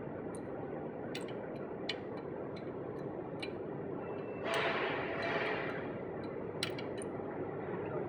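Faint, irregular metallic clicks of a McGard lug bolt being turned by hand into a BMW alloy wheel, over a steady background hiss. About halfway through comes a brief, louder swell of noise.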